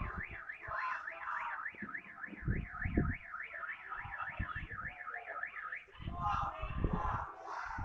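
Car alarm siren warbling rapidly up and down, about three or four sweeps a second, cutting off about six seconds in. Low booms of fireworks sound a few times underneath, with a cluster near the end.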